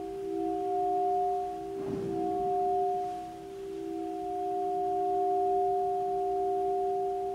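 Saxophone holding soft, long notes, layered with live-recorded saxophone played back through loudspeakers: several steady pitches overlap. A short breathy swell comes about two seconds in.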